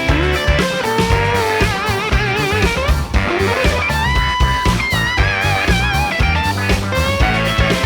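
Background music: a bluesy electric guitar lead with bends and vibrato over drums and bass, with a steady beat.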